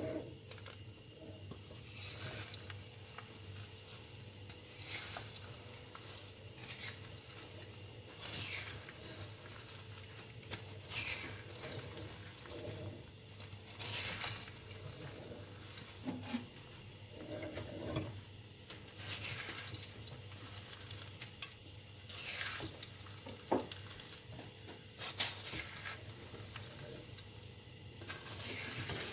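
Wooden spatula stirring peanuts and sugar in a metal pan on a gas stove, the nuts scraping and rattling against the pan in irregular strokes every second or two over a steady low hum. The stirring is kept up constantly so the sugar coating does not burn.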